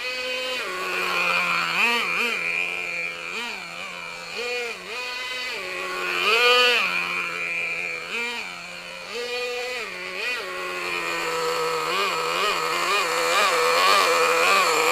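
VRX .18 two-stroke nitro engine of an RC monster truck, running and being blipped up in short revs about once a second, with quicker blips near the end.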